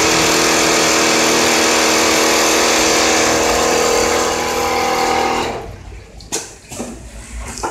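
Richpeace automatic template sewing machine running, a loud steady hissing hum that stops about five and a half seconds in, followed by a few sharp clicks and knocks.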